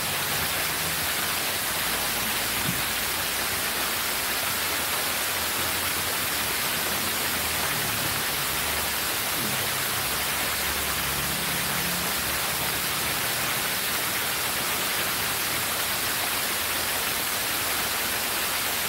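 Water pouring steadily down the steps of a cascade fountain: an even, unchanging hiss.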